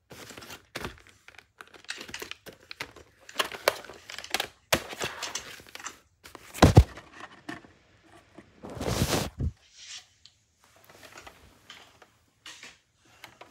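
Plastic VHS case handled, opened and the cassette taken out: a run of clicks, rustles and knocks, with a heavy thump about halfway through and a longer rustle a couple of seconds later.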